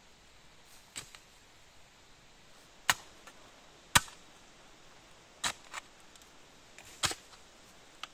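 A shovel blade cutting into forest soil, a sharp strike every second or so, about eight in all, the loudest about four seconds in.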